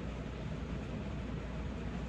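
Heavy rain falling, a steady even hiss with a low rumble underneath.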